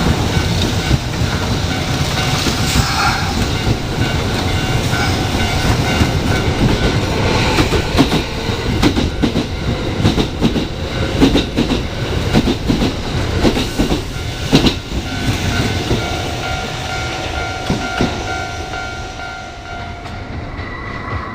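Kintetsu Nara Line electric train running through a level crossing, its wheels clacking over the rail joints, with the clacks thickest through the middle. The sound dies away near the end as the train moves off.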